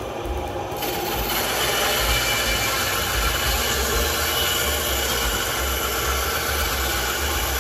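Ryobi bandsaw ripping along the edge of a rough scrap 2x4: the steady hiss of the blade cutting wood over the motor's low hum. The cutting noise turns sharply brighter about a second in.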